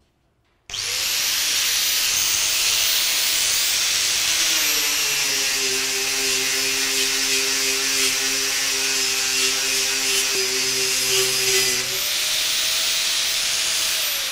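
Bosch GWS 800 4-inch, 800-watt angle grinder with a fibre sanding disc on a rubber backing pad: it starts up about a second in and runs free, its pitch drops under load as the disc sands metal for about seven seconds, then rises again as the disc is lifted off. Near the end it is switched off and begins to wind down.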